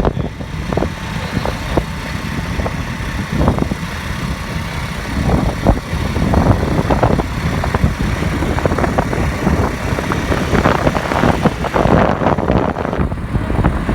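Car on the move: a steady low rumble of engine and road noise, broken by frequent short knocks and rattles.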